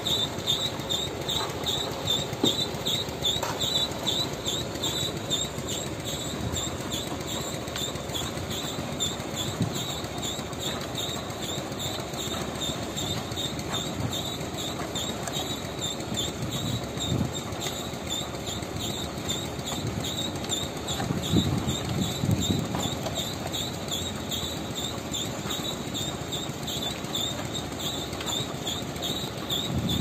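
Concrete mixer truck running with its drum turning as it discharges concrete into pile moulds: a steady low rumble, swelling briefly about two-thirds of the way in, with a fast, regular high-pitched chirping over it.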